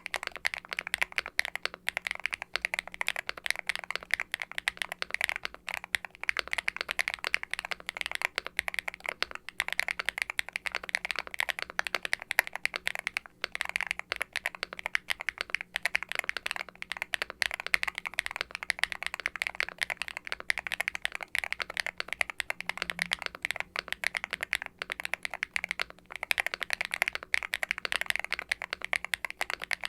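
Typing on a Qwertykeys x ATK Hex80 aluminum mechanical keyboard with factory-lubed Owlab Ti HE linear switches and double-shot ABS keycaps: a steady run of fast keystrokes with a deep, clacky sound.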